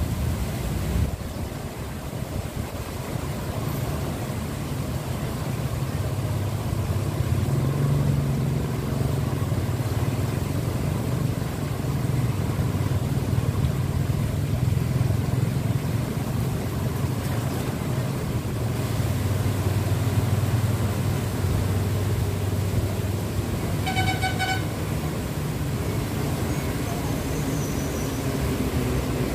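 Steady low rumble of road traffic, with a short vehicle horn toot late on.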